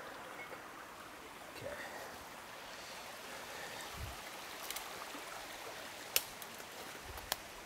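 Steady rushing of a stream, with a few faint sharp clicks about halfway through and near the end.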